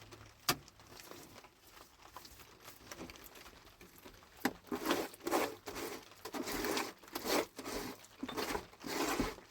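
Dry crinkling and tearing rustles from hands working something papery, in a run of short strokes through the second half. There is a single sharp click about half a second in.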